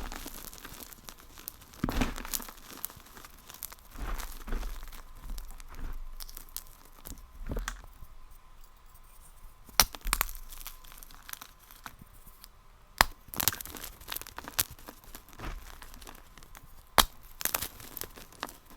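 A brittle material being crunched and crumbled in repeated bursts, with a few sharp cracks in the second half, in a sped-up recording.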